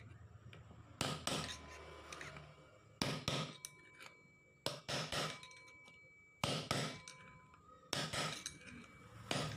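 Hammer blows on a metal drift driving a new bearing into a Yamaha Mio Sporty's CVT pulley: sharp metal-on-metal taps, mostly in twos and threes. Each tap leaves a short metallic ring.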